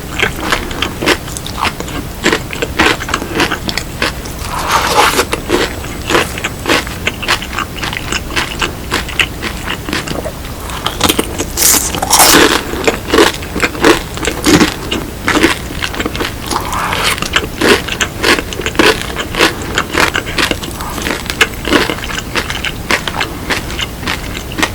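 Close-up eating sounds of crispy BHC Bburinkle fried chicken: a steady run of crunching bites and chewing, with heavier crunches about five and twelve seconds in.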